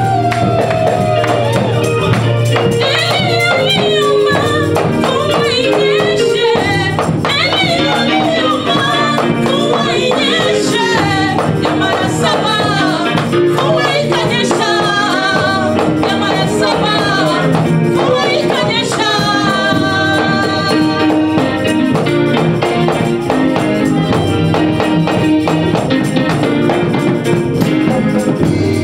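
Gospel song: a singing voice with vibrato over sustained bass and keyboard-like notes, with tambourine keeping the beat.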